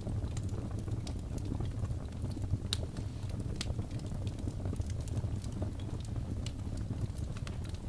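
Wood fire crackling in a fireplace: scattered sharp pops and snaps, two of them louder a little before and after the three-second mark, over a steady low rumble of the flames.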